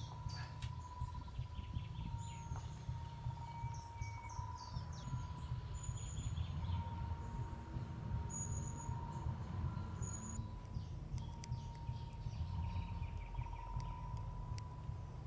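Woodland ambience: scattered short bird chirps over a steady low rumble, with a faint steady mid-pitched tone running underneath.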